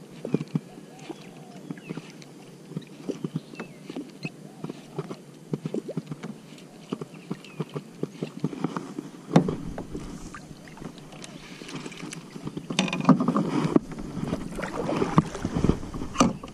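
Many small clicks and knocks as a baitcasting reel is wound in and gear shifts about in a plastic kayak. A sharp louder knock comes about nine seconds in, and a louder, busier stretch of knocking and handling noise runs through the last few seconds.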